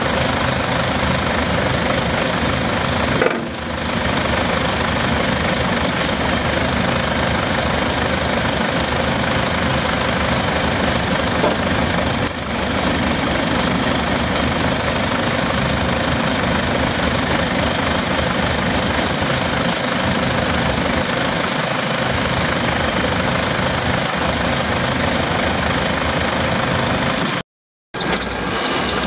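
John Deere 6300 tractor's four-cylinder diesel engine running steadily. The sound cuts out completely for about half a second near the end.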